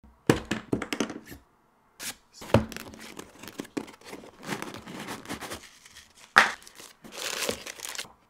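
A DJI Mavic 3E hard-shell case being unlatched and opened: a quick run of sharp plastic snaps and clicks in the first second or so. Then rustling and crinkling of plastic packaging as accessories are handled and unpacked, with a loud click a little after six seconds.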